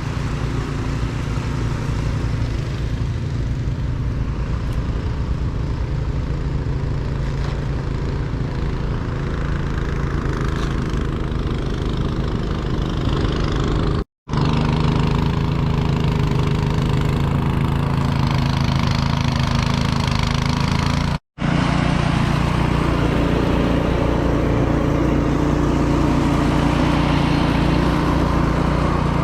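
An engine running steadily at a constant speed. The sound cuts out completely twice for a moment, about halfway through and again about a week's worth of seconds later, near two-thirds of the way.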